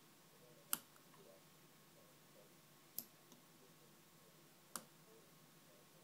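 Three sharp clicks a couple of seconds apart, with a faint tick just after the second, from a dimple-lock pick tool being worked in a Mul-T-Lock dimple padlock; otherwise near silence.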